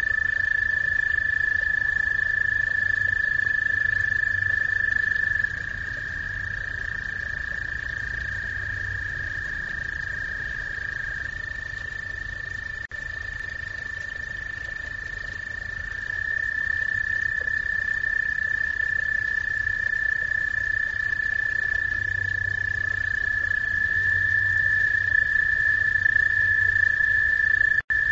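Frogs trilling: a long, steady, high-pitched trill runs without a break, with a second caller at a slightly lower pitch dropping out partway through and others joining later, so the sound gets quieter about a fifth of the way in and louder again past the middle.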